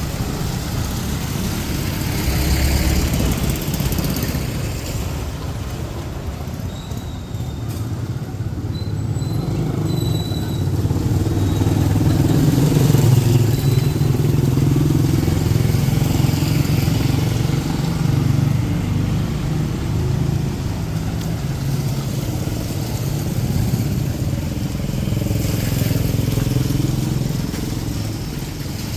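Street traffic, with motorcycle engines running and passing and growing loudest about halfway through.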